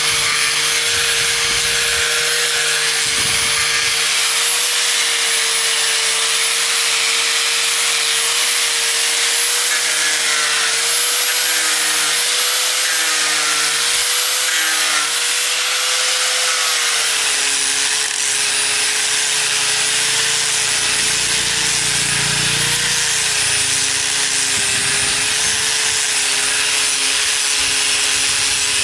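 Angle grinder with a sanding disc running steadily and sanding down weathered wood, a loud motor whine over the scrape of abrasive on wood. The whine drops slightly in pitch about two-thirds of the way through.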